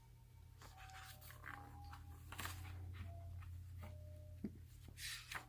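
Faint rustling and small knocks of a paper picture book being handled, with a sharp click about four seconds in, over a low steady hum.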